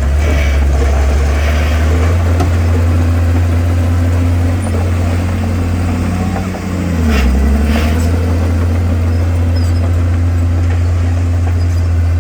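Komatsu bulldozer's diesel engine running steadily under work, its pitch sagging briefly about six seconds in and then picking back up. A couple of short, sharp clatters come about seven seconds in.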